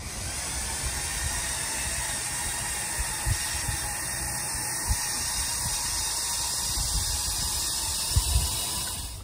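Lego Technic golf cart, driven by ten Lego L motors, running its drivetrain under load while it drags a plastic tray of paving bricks over a carpet runner: a steady hiss-like whirr and scrape, with a few low knocks.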